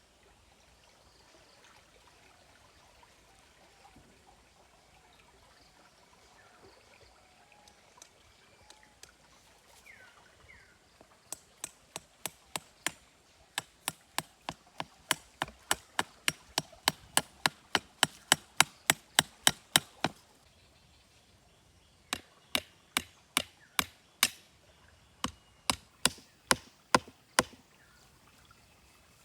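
Quiet outdoor background with faint bird chirps, then a knife starts chopping about eleven seconds in: sharp regular strikes about three a second that grow louder. They break off for about two seconds and resume for a second run of about a dozen strikes.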